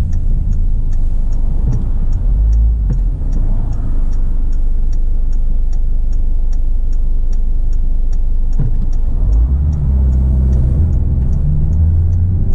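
Cab interior sound of a 2017 Peugeot Expert 1.6 diesel van pulling away: a steady low engine and road rumble that grows heavier about ten seconds in. A light, regular ticking about twice a second runs alongside it.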